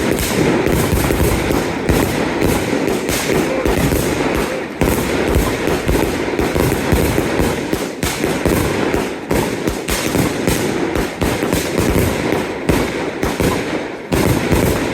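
Consumer fireworks going off in a dense, unbroken run of rapid bangs and crackling, which dies away at the very end.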